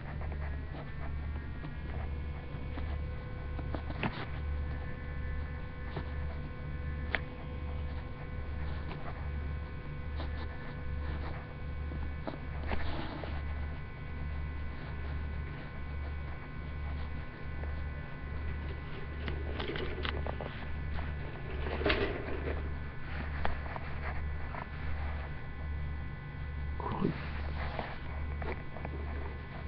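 Small electric motor of a Lego train whining steadily after rising in pitch at the start, over a low hum that pulses about once a second. A few clicks and knocks from handling come through.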